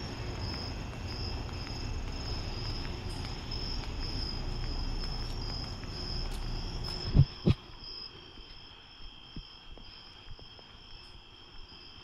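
Crickets chirping in a steady, softly pulsing high trill, over a low rumble. About seven seconds in, two sharp thumps come close together and the rumble drops away, leaving the crickets with a few faint ticks.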